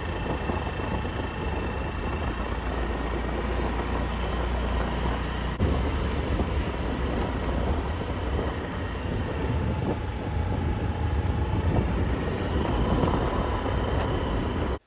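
A vehicle on the move: steady engine and road rumble, cutting off abruptly near the end.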